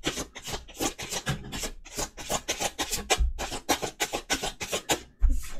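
A deck of tarot cards being shuffled by hand: a quick, uneven run of papery rubbing strokes, about four or five a second, with a couple of dull thumps.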